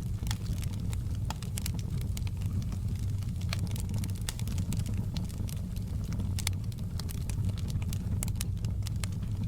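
Open log fire burning in a fireplace: a steady low rumble with frequent sharp crackles and pops from the burning wood.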